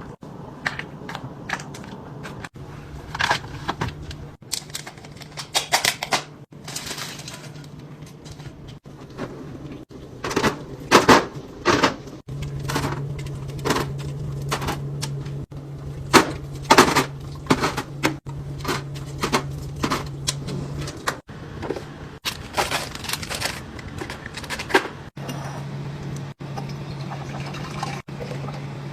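Food containers, jars and bottles being handled and set down in a refrigerator: irregular clicks, knocks and clinks of plastic and glass, busiest in two clusters near the middle, over a low steady hum.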